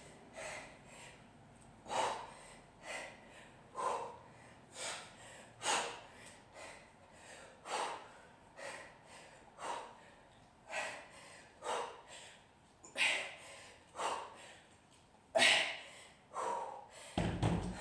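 A person's sharp, forceful breaths during kettlebell snatches, one burst about every second, timed to the reps. A low thud comes near the end.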